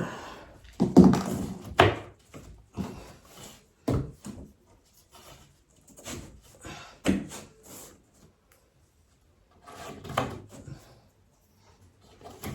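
Wooden flat-pack drawer parts being handled and fitted together: a series of irregular knocks and clatters of wood on wood, with quiet gaps between.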